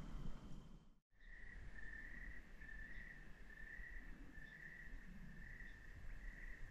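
Crickets chirping in a steady rhythm, about two chirps a second, faint. About a second in, the sound cuts out abruptly for an instant and the chirping resumes.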